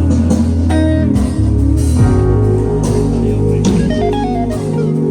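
Instrumental band music: electric guitar playing melodic lines over steady bass guitar notes.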